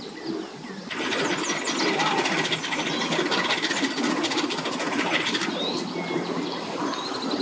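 An engine starts running about a second in and keeps going steadily with a fast buzzing rhythm, with birds chirping above it.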